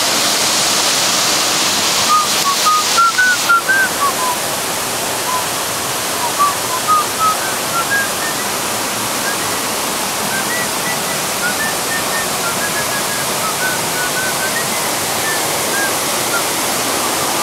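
Steady rush of the waterfall and stream, with a run of short, high chirps over it from about two seconds in until near the end.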